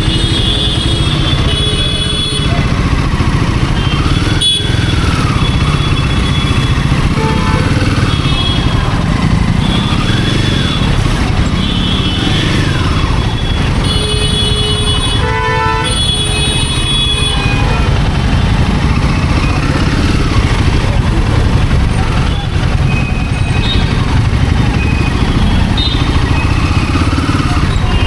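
Royal Enfield Himalayan 450's single-cylinder engine running steadily under way, with road and wind noise. A vehicle horn honks briefly about halfway through.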